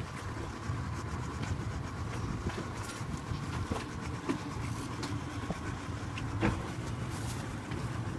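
Cobia center-console boat's engine idling steadily at the dock, with a few light knocks over it.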